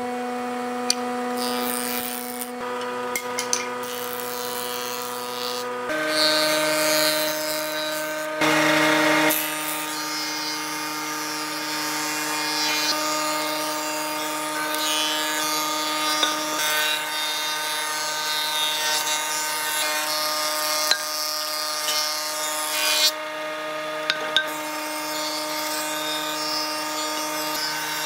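Woodworking planing machines, a jointer and a thickness planer, running with a steady motor hum while their cutterheads shave a wooden board pass after pass. The hum changes pitch several times, with a louder cutting stretch about eight seconds in.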